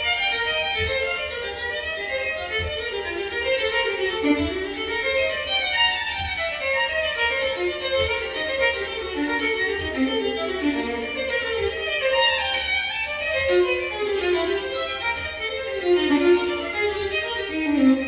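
Violin music played from a vinyl LP, with scattered ticks and pops of record surface noise over the melody.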